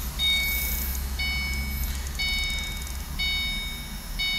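A car's dashboard warning chime sounding with the ignition switched on and the engine not running. Each chime is a steady, bell-like tone lasting just under a second, and it repeats once a second, about five times.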